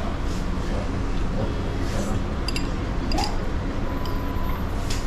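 Small-restaurant ambience: a steady background of indistinct chatter with a few short, light clinks of tableware.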